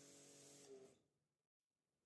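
Near silence: a faint steady hum that fades out about a second in, leaving dead silence.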